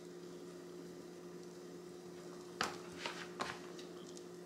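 Quiet hand handling of a rotisserie chicken as meat and a wing are pulled off the carcass, with a few short clicks between about two and a half and three and a half seconds in, over a steady low hum.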